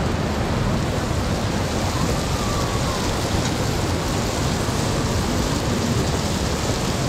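Steady rushing of a fast river, an even roar without breaks.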